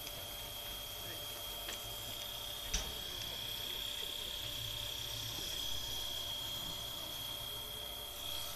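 Steam locomotive C58 363 standing under steam: a steady high-pitched whine of its steam equipment over a low rumble, with a single knock about three seconds in.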